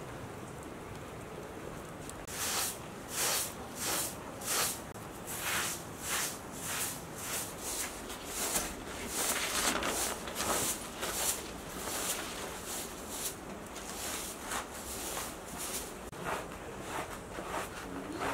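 Julienned potato strips frying in oil in a black pan, the sizzle swelling in regular surges about one every two-thirds of a second after a steady hiss for the first couple of seconds.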